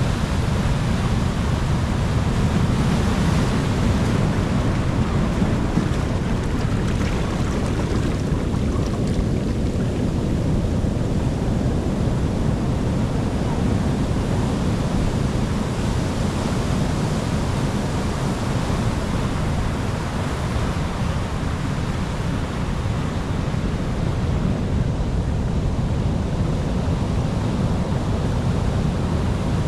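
Ocean waves and surf washing steadily, a dense low rush that swells and eases only slightly.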